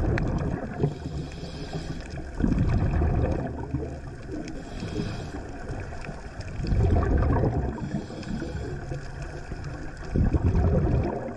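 Underwater sound of scuba diving: the gurgle and rush of a diver's exhaled bubbles from the regulator, swelling in surges about every four seconds over a low rumble of water.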